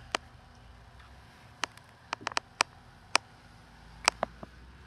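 Handling noise from a phone held against a window while filming: about ten short, sharp clicks and taps at irregular intervals over a faint low rumble.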